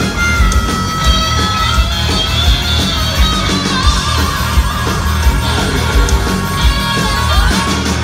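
Live hard rock band playing loud, with electric guitars and bass over a steady drum beat.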